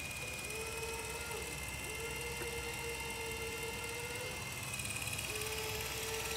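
Steady high whine from a radio-controlled model's electric motor and gearing, its pitch dipping briefly a few times as the load changes.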